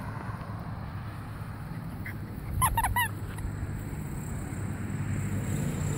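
A 9-week-old Miniature American Shepherd puppy giving a quick run of three or four short, high yips, about half a second in all, around the middle, over a steady low background rumble.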